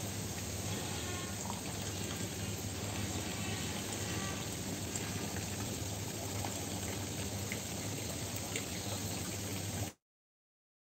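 Steady ambient hiss with a low, even machinery hum underneath, cutting off abruptly to dead silence for about a second near the end.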